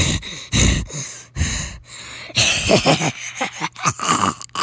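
A person's voice making breathy non-word sounds in a string of short bursts, like gasps and groans, over a faint steady low hum.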